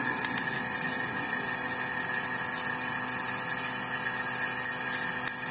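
A steady mechanical hum with a few constant tones, running unchanged throughout.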